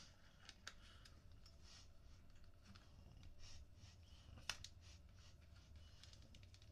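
Near silence with faint clicks and light rustling as small plastic nebuliser parts are handled and fitted together; one sharper click about four and a half seconds in.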